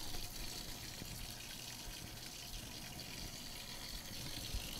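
Kitchen faucet running a steady stream of water into a stainless steel sink, rinsing a thermometer's metal probe held in the stream.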